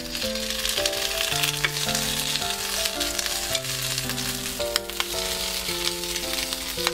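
Small Vienna sausages sizzling as they fry in a hot nonstick pan, with a few sharp clicks as wooden chopsticks knock against the pan while turning them.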